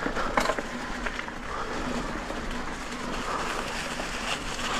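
Electric mountain bike riding a trail covered in dry leaves over loose sandy gravel: even tyre and trail noise with a few clicks and rattles in the first half second, and a faint steady hum from the e-bike motor.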